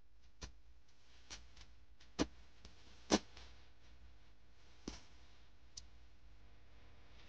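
A few scattered light clicks and knocks over a faint low hum, two louder ones about two and three seconds in.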